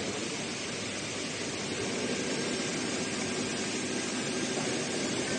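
Steady mechanical running noise with a fast, even flutter underneath, from a computerized heating-wire sewing machine at work.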